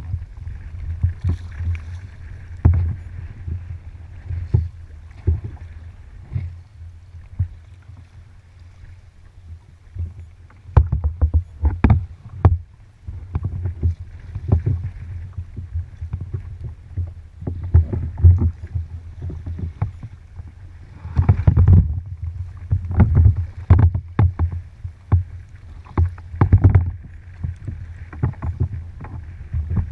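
Kayak on open water: irregular low knocks and splashes of water against the hull and paddle, coming in busier clusters, over a faint steady hiss.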